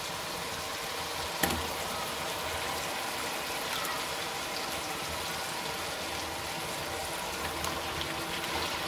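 Onion-tomato masala bubbling and sizzling in hot ghee in a pot, with raw chicken pieces being added to it. There is a single sharp knock about a second and a half in.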